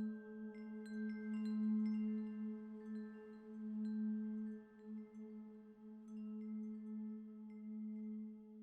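Meditation soundscape: a steady low singing-bowl-like drone that swells and fades slowly, under wind chimes struck at scattered moments, each tone ringing on. The strikes are denser in the first few seconds.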